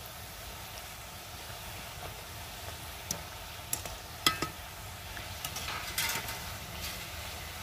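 Mathri deep-frying in hot oil in a karahi, a steady sizzle. From about three seconds in, a wire-mesh skimmer stirring them clicks and scrapes against the pan several times.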